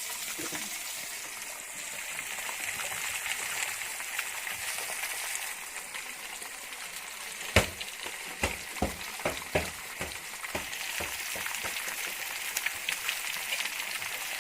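Marinated fish pieces frying in oil in a pan under a lid, a steady sizzle. About halfway through comes a run of sharp pops and taps over a few seconds, the first the loudest.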